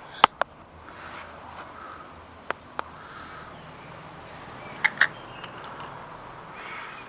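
Handling noise on a handheld camera: sharp clicks and taps in three pairs, the loudest just after the start, over faint outdoor ambience.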